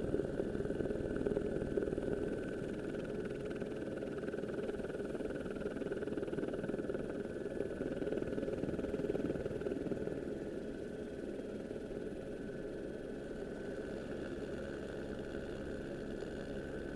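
A steady engine drone with a constant pitch and no revving, easing slightly about ten seconds in.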